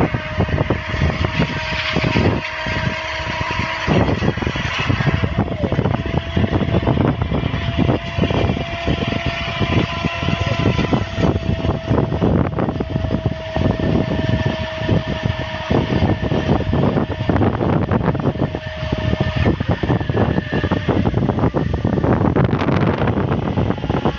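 Tractor-driven chaff cutter chopping green fodder stalks: a dense, rapid chopping over the running tractor engine, with a steady whine that comes and goes.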